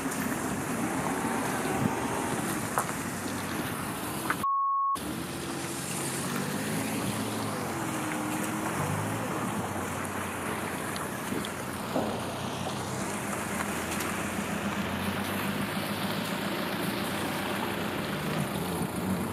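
Steady outdoor street noise with a car driving past through puddles and indistinct talking. About four and a half seconds in, a single half-second high beep blanks out a word: a censor bleep.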